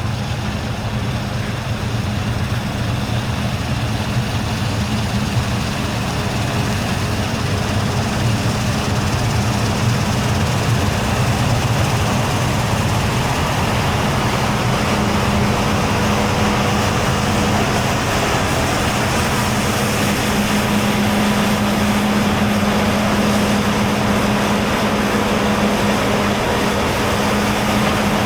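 Heavy diesel harvest machinery running steadily under load, with a steady drone that grows stronger in the second half.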